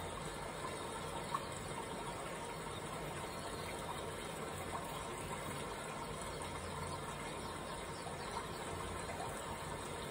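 Steady background hiss with one faint click about a second in.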